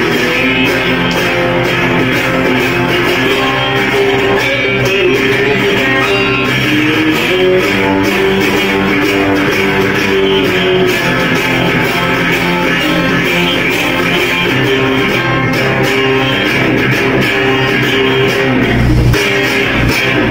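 Rock music led by an electric guitar, played continuously with a band backing; a deeper bass comes in near the end.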